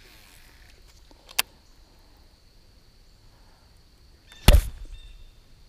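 Cast with a baitcasting rod and reel: a single light click about a second and a half in, then a sharp whoosh with a low thump near the end, the loudest sound. The cast is the one on which the badly tied lure comes off the line.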